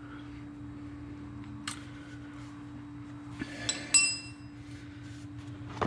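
Metal-on-metal handling at a portal gear box as its magnetic plug goes back in: a few light clicks and one ringing metallic clink about four seconds in, over a steady low hum.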